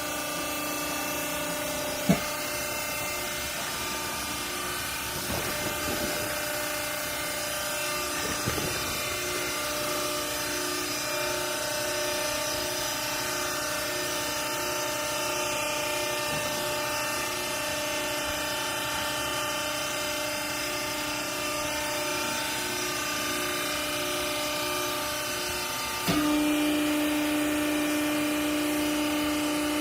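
Hydraulic cloth baler's motor and pump running with a steady hum, a sharp click about two seconds in. About 26 seconds in the hum gets louder and a stronger steady tone sets in.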